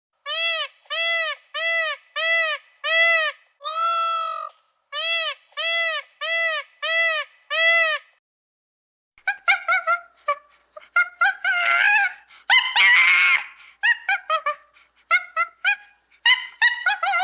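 Waterfowl honking: a regular series of clear, identical honks, about two a second, for some eight seconds. After a short pause comes a more ragged run of overlapping honks and harsher calls.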